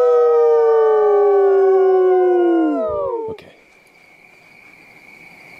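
A group of people howling together in imitation of coyotes, trying to get real coyotes to howl back. Several voices hold long howls at different pitches that slide slowly downward and break off about three seconds in. After that only a faint steady high tone remains.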